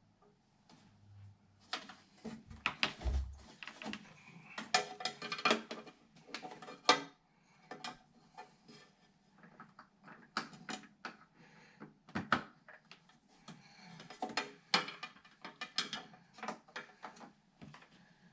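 Irregular sharp clicks, knocks and small rattles of computer parts and cables being handled and fitted: hard plastic connectors and metal pieces tapping and clattering in short bursts, with brief pauses between.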